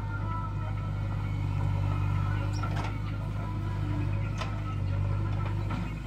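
JCB backhoe loader's diesel engine running steadily as the digging arm works, with a few sharp knocks from the arm and bucket about halfway through and near the end.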